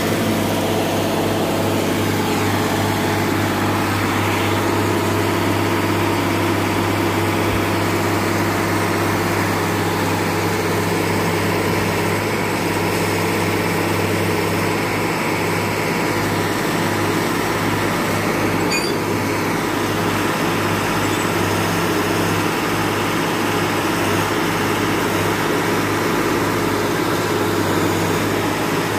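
Engine of a rail-mounted track maintenance machine running at a steady, even drone.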